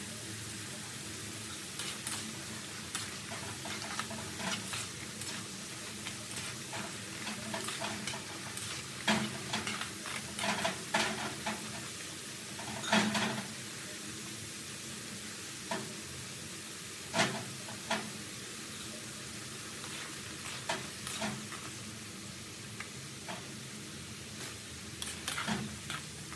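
Potato strips deep-frying in hot oil in a metal wok with a steady sizzle. Over it, metal utensils clink and knock against the wok many times as the fries are stirred and lifted, loudest around the middle.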